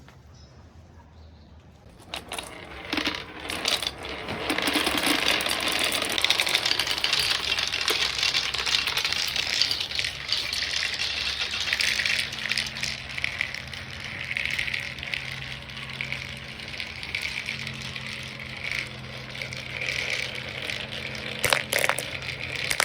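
Many marbles rolling and clattering down a toy marble run track, a dense continuous rattle of small clicks that starts about two seconds in, with a few louder clacks near the end.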